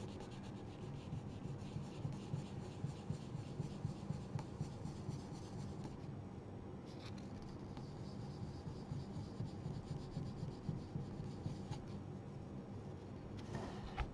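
Very fine sandpaper rubbed by hand in light, quick strokes over the sealed surface of a painted icon board, smoothing out small raised spots in the first coat of finish. There is a brief lull about halfway through.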